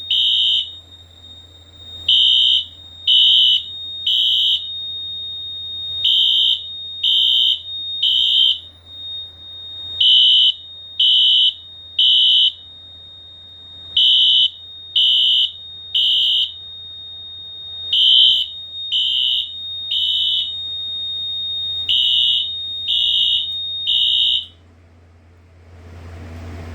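Two synced Wheelock AS-24MCW horn strobes, set to low volume, sounding the temporal-three (code 3) fire evacuation pattern: groups of three short high-pitched beeps about every four seconds over a faint steady high tone. This is a fire alarm panel in alarm from an activated smoke detector. The horns cut off about 24 seconds in.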